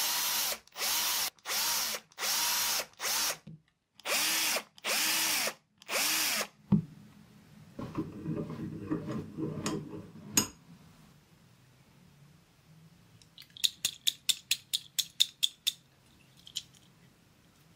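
Electric drill run in eight short bursts, each speeding up and slowing, as it bores into the metal base of a diecast Matchbox Peterbilt wreck truck held in a vise. A sharp knock follows, then a few seconds of scraping and handling, and near the end a quick run of about a dozen light clicks.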